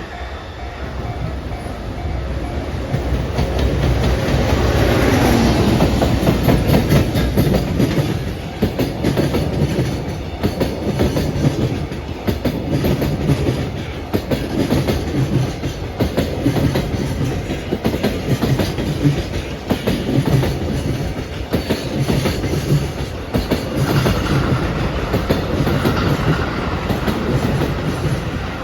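JR Freight EF210-300 electric locomotive hauling a train of Koki container flat wagons past at speed. The sound is loudest as the locomotive goes by about five seconds in, then the wagon wheels clatter steadily over the rail joints in a regular rhythm.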